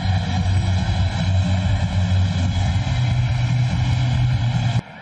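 Stadium crowd cheering after a goal, a steady loud roar that cuts off suddenly near the end.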